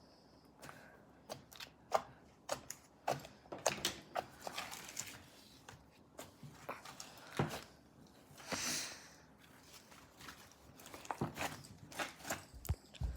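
Slime being kneaded and squeezed by hand, giving irregular crackling pops and clicks, with a longer hissing squish about two-thirds of the way through.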